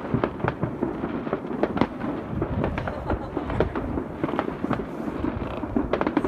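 Fireworks and firecrackers going off in many places at once: a dense, irregular run of bangs and crackles without a break, some bangs louder than others.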